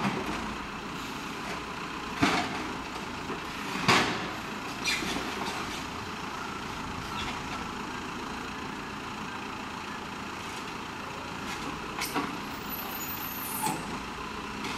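Diesel engine of a CAT backhoe loader running steadily while its bucket digs, with sharp knocks and scrapes of the bucket on asphalt and debris, the loudest about two and four seconds in. A faint high squeal sounds near the end.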